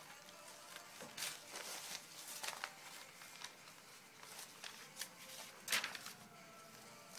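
Faint rustling and a few sharp crinkles of sheets of paper being handled, as handwritten signs are moved and swapped.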